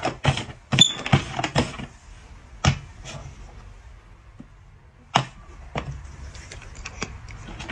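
A quick run of sharp knocks and thumps, then a few single knocks and a patter of lighter clicks near the end.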